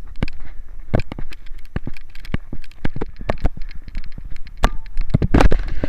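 Jostling of a camera carried by a running person, with his footfalls: irregular knocks and crackles, several a second, over a low wind rumble. The loudest knock comes near the end.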